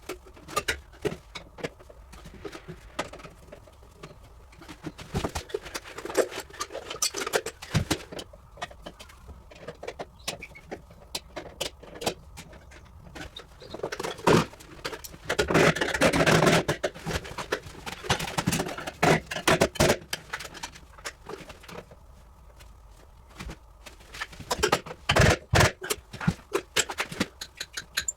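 Irregular clinks, knocks and scraping of hand tools and metal parts being handled, with a denser stretch of rattling and scraping about halfway through and a few heavier knocks near the end.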